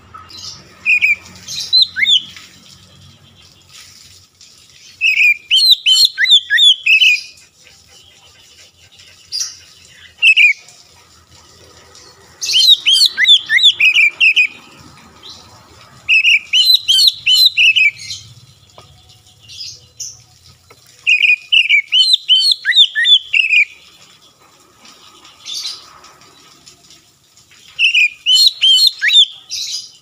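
Oriental magpie-robin singing: loud phrases of rapid, varied whistled notes, one every three to four seconds, about eight phrases with short pauses between them.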